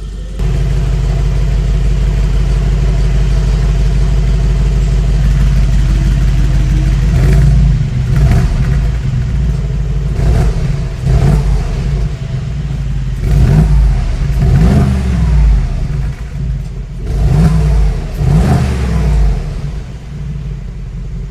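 Mercedes-AMG G63's 4.0-litre twin-turbo V8 idling with its exhaust flap opened, then blipped through a string of about eight short revs, each rising and falling, before settling back to idle near the end.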